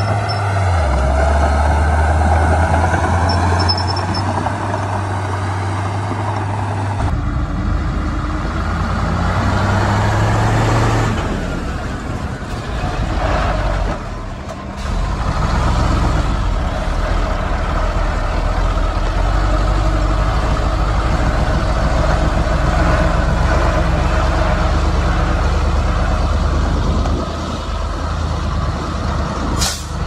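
Heavy diesel machinery, a crawler bulldozer and dump trucks, running and working steadily; the sound changes abruptly about seven seconds in.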